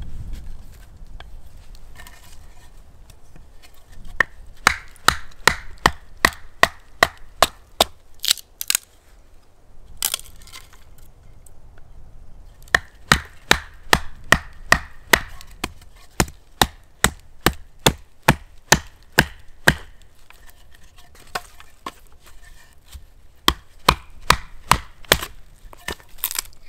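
Repeated sharp wooden knocks, about two a second in three runs with short pauses, as a bushcraft knife (an Enzo Trapper) is struck through a thick stick to split it.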